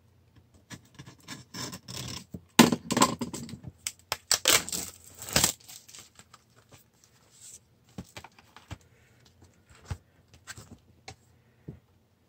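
Thin plastic packaging crinkling and rustling as a folded paper guide is pulled out of it and opened. The handling is loudest from about two and a half to five and a half seconds in, then thins to scattered light crackles and taps of plastic and paper.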